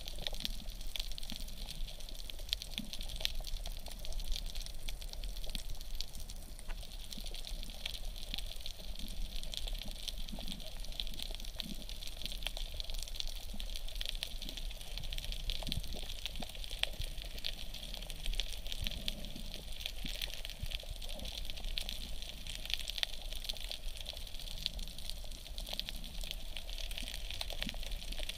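Underwater ambience picked up by a submerged camera: a steady hiss with dense, crackling small clicks throughout.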